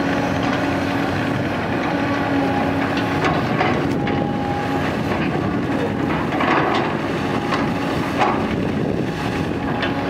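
Caterpillar 320D tracked excavator at work: its six-cylinder diesel engine runs steadily as the bucket digs and lifts wet soil, with several short knocks and scrapes along the way.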